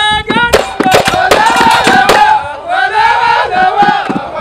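Moroccan folk troupe of men chanting together in a call-like melody, over sharp, irregular hand claps and beats.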